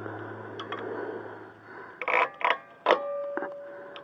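Metal clinks: three sharp knocks a few tenths of a second apart about two seconds in, the last one ringing on briefly, as of metal tools or brake parts knocking together. A low steady hum runs under the first half and stops just before the knocks.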